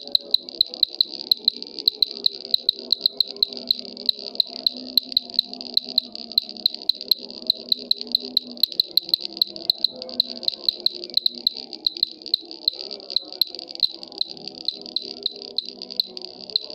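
Cricket chirping steadily, high-pitched, with sharp pulses several times a second. Fainter lower tones run underneath.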